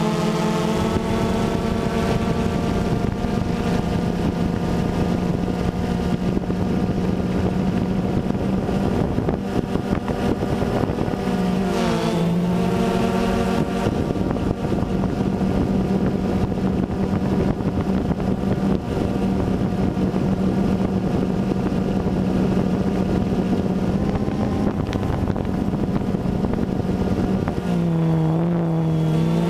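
DJI Phantom 2 quadcopter's motors and propellers buzzing steadily, heard through the GoPro camera mounted on it, over a rush of wind noise. The buzz dips in pitch and comes back up about twelve seconds in and again near the end.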